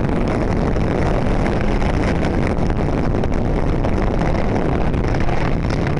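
Snowmobile engine running at a steady pace under way, with wind rushing over the microphone.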